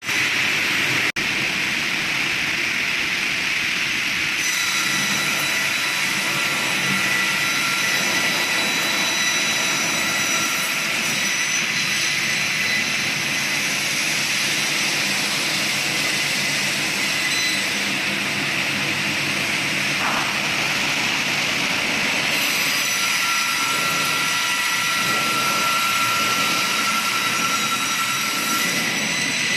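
Woodworking machinery running steadily: a loud, even whine and hiss with faint high tones that come and go.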